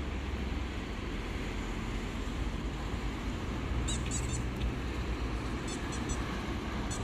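Steady low rumble of road traffic. Short high chirps or squeaks come in two brief clusters, about four and six seconds in.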